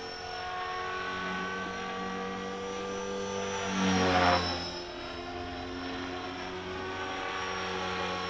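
Electric T-Rex 450 RC helicopter in flight, its rotor turning at about 3100 rpm, giving a steady whine of several tones. About four seconds in it briefly grows louder and rougher.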